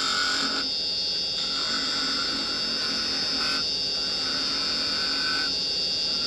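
Wood lathe turning a small spindle finial while a carbide chisel cuts it, the wood giving off a noisy, steady buzzing whine over the lathe's hum. The middle tone of the whine drops out briefly three times as the tool comes off the wood and goes back on.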